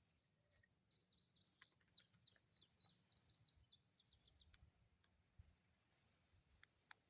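Faint birdsong outdoors: a quick run of short, high chirps through the first half or so, then a few scattered notes, over a thin steady high-pitched tone.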